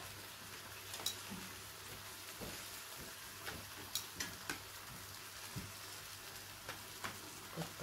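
Meat sizzling faintly on a tabletop Korean barbecue grill, with several sharp clicks of metal tongs and utensils against the grill and dishes.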